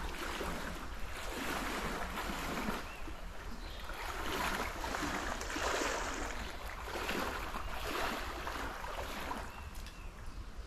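Water splashing and rushing in a small canal, swelling about once a second, over a low rumble of wind on the microphone.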